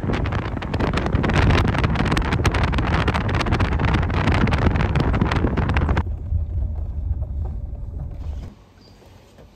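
Wind buffeting a phone microphone in a moving car, over the car's road rumble, with dense crackling. About six seconds in the crackle stops and only the low rumble remains, and near the end that drops away too.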